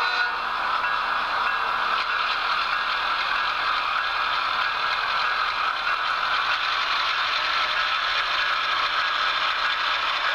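HO scale model train running along the track: a steady mechanical whirring and rattle from the locomotive's motor, gears and wheels rolling on the rails.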